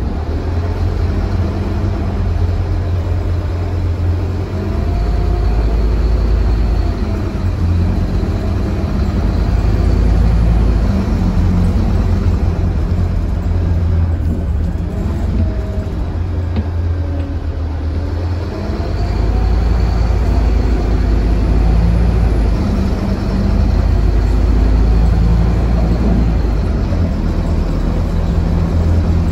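Onboard a Scania K320UB city bus, its rear-mounted engine and driveline running under way as heard from the passenger cabin: a deep, steady drone with a whine that rises and falls several times as the bus speeds up and eases off. It eases briefly about two-thirds of the way through, then pulls away louder again.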